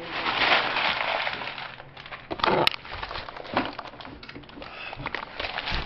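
Handling noise: a burst of rustling and scraping, then several sharp knocks and clicks, the sharpest about two and a half seconds in, as objects are put away and the camera is picked up.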